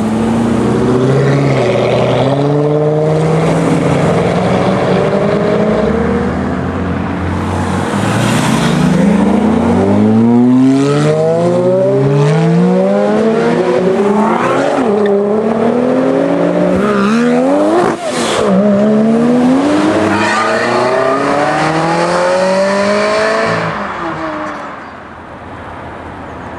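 Sports car engines: a low steady engine note for the first few seconds, then several cars accelerating hard one after another, each rising in pitch through the revs and dropping back at the gear changes, dying away near the end.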